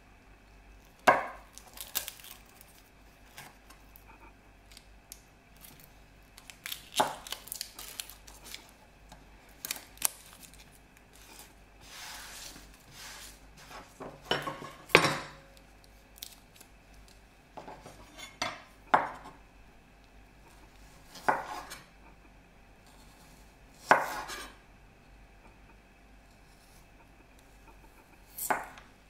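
Chef's knife slicing garlic cloves on a bamboo cutting board: sharp knocks of the blade meeting the board every few seconds, sometimes two close together, with quieter handling sounds between.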